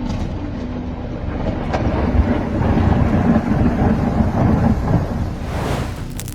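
Storm wind rumbling loudly on a doorbell camera's microphone during a night tornado, with thunder mixed in; it fades and changes near the end.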